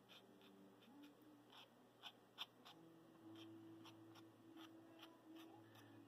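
Near silence, with faint irregular ticks of a fine paintbrush tip flicking against wet watercolour paper, a little stronger twice about two seconds in, over a quiet steady hum.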